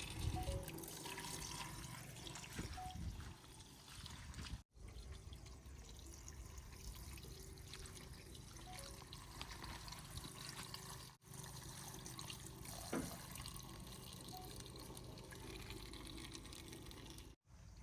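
JCB backhoe loader's diesel engine running while sand pours and slides from its bucket into a trolley, a steady rushing, pouring noise. The sound drops out abruptly three times.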